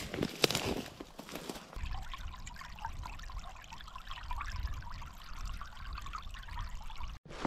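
Water trickling with many small bubbling blips. Footsteps come just before it, in the first two seconds or so.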